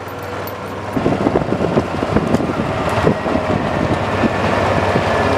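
A motor vehicle's engine running steadily. About a second in it grows louder and a fast, irregular clatter of knocks and rattles sets in.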